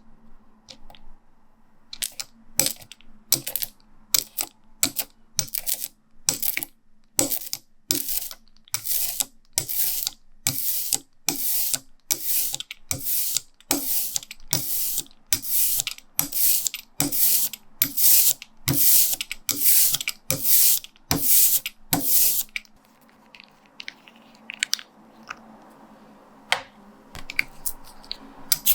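Soft rubber brayer rolling back and forth through relief ink, a steady run of rolling strokes at about two a second. They stop about two-thirds of the way through, leaving a few small handling sounds, and start again at the very end.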